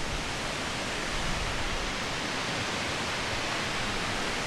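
Steady rushing road and wind noise of a 1991 Volkswagen Vanagon Syncro driving along the highway, even and unbroken.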